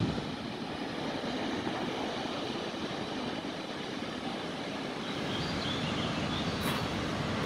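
Steady rushing outdoor noise with no speech, a faint high chirp about five seconds in and a brief click near the end.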